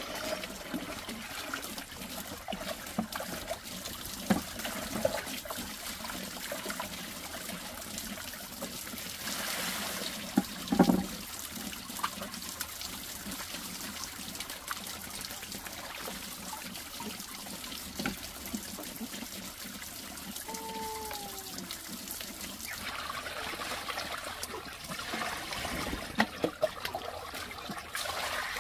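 Water trickling steadily from a bamboo pipe into a clay jar, with light splashing as meat is washed by hand in a plastic basin of water. Near the end, water is poured from a plastic ladle into a pot.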